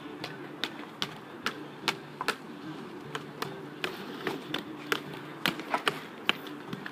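Quick, irregular taps of a hockey stick blade on a street hockey ball on asphalt as a skater stickhandles, a few taps a second. A low steady hum runs underneath.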